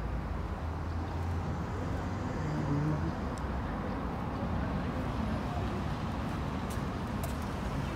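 Outdoor background noise: a steady low rumble, with a few faint short ticks about three and a half and seven seconds in.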